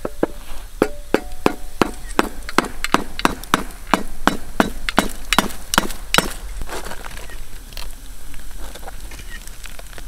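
A steel-headed hammer repeatedly striking a baked salt crust on a metal tray to crack it open, about three sharp blows a second. The blows stop about six seconds in, and fainter crunching follows as the broken crust is pulled apart.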